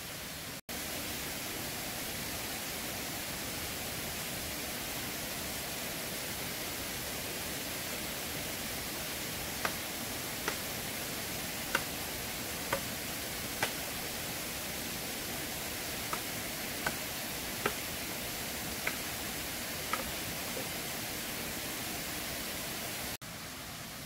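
Steady rushing of a waterfall, an even hiss of falling water. In the middle a run of about ten short, sharp ticks comes roughly a second apart.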